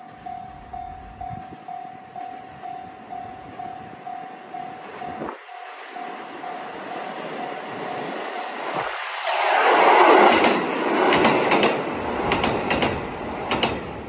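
Level-crossing warning bell ringing in a steady pulse, about two strikes a second, then stopping about eight and a half seconds in. A Limited Express Hida diesel train then passes close by with a loud rumble, loudest about ten seconds in, and its wheels click over the rail joints near the end.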